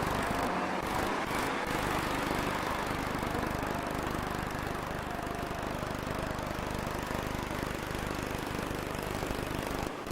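Large diesel engine running steadily with a low, even throb, typical of the heavy plant at work on a bridge installation.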